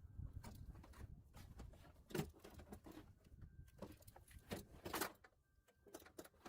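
Faint clicks, light knocks and scraping of a window regulator assembly being worked into a truck's door panel, with a louder knock about two seconds in and another near five seconds.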